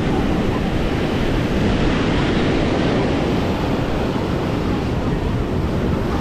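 Steady wind noise buffeting the microphone over the continuous wash of surf on a beach.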